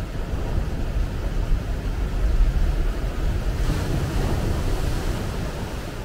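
Ocean waves breaking onto a sandy beach beside shoreline rocks: a deep rumble, then the hiss of surf washing up the sand from about halfway through, slowly fading.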